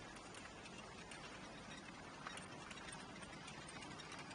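Faint steady hiss of outdoor background noise, with a few light clicks scattered through it.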